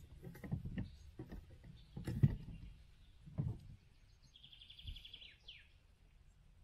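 A few dull thumps and knocks of handling while a small asp is landed with a rod and landing net, the loudest about two seconds in. A bird gives a short trill about four and a half seconds in, ending in a falling note.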